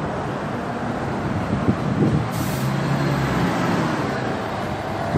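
City street traffic with a heavy vehicle's engine running close by, and a short hiss about halfway through.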